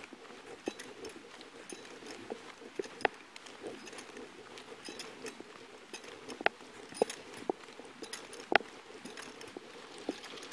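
Footsteps on a concrete sidewalk with small clinks and knocks of gear on a walking police officer, picked up close by a chest-worn body camera. Irregular sharp clicks at a walking pace, two louder knocks in the second half, over a low steady hiss.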